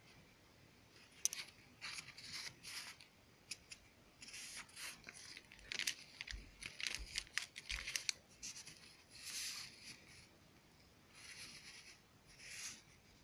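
Paper-backed medicated pain plasters being handled and shuffled by hand, rustling and crinkling in a series of short bursts.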